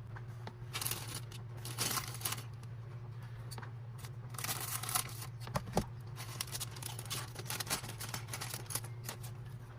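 Faint, irregular clicks and rustles of small plastic parts and packaging being handled, over a steady low hum.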